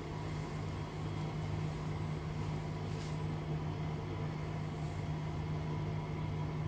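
A steady low hum from a background appliance or fan, with a couple of faint light clicks from metal spoons scooping and spreading melted chocolate.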